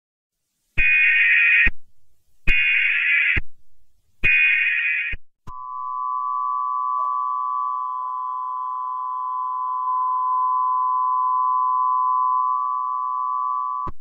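Emergency Alert System test signal: three short buzzy bursts of SAME header data, then the steady two-tone EAS attention signal for about eight seconds, which cuts off just before the end.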